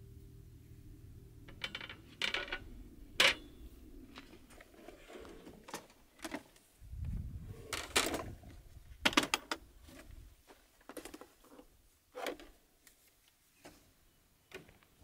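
Sharp plastic clicks, knocks and small rattles of gear being handled: the latches and clear lid of a red Milwaukee Packout-style organizer box being snapped open and items lifted out onto a truck tailgate. Single clicks, with a quick cluster of them about nine seconds in.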